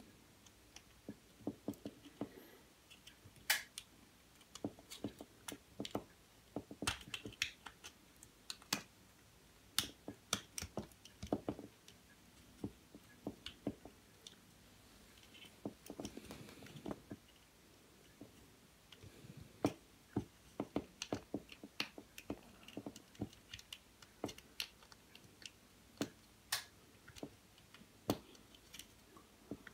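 Irregular light clicks and taps of hard plastic being handled: a small plastic electrical junction box and its snap-on cover worked by hand, a few sharper clicks among many faint ones.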